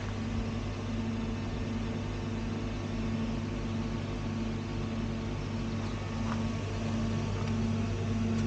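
Refrigerated seafood vending machine's cooling unit humming steadily: a low drone with a second, higher held tone above it.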